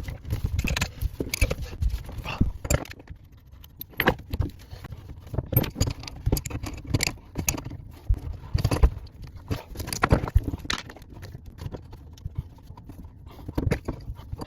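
Irregular metallic clicks, clinks and knocks of plumbing tools and fittings being handled and worked.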